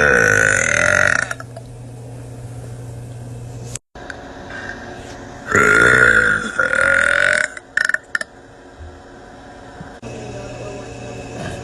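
A woman burping loudly: one long burp that ends about a second in, then, after a pause of several seconds, two long burps back to back with a couple of short ones after.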